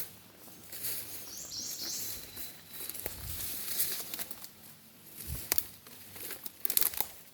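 Outdoor woodland ambience: a bird gives a short run of high notes about a second in, ending in a thin held whistle, while twigs and leaf litter crackle underfoot, most sharply near the end.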